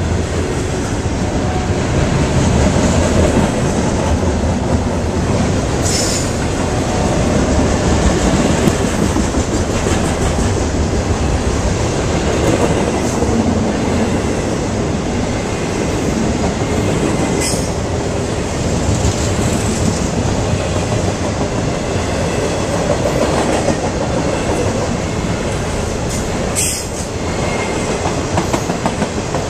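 BNSF intermodal freight train passing close by: the steady, loud rumble of steel wheels on rail from double-stack well cars and trailer-carrying spine cars. Three brief sharp high sounds cut through it, at about 6, 17 and 27 seconds in.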